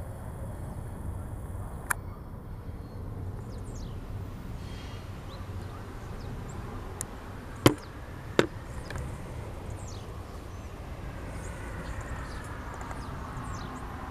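Distant container freight train rolling away, a steady low rumble, with a few sharp clicks, the loudest about seven and a half seconds in.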